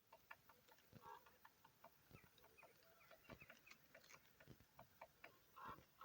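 Woodpecker knocking on wood in irregular, faint taps, mixed with short calls of jackdaws and crows, two louder calls about a second in and near the end.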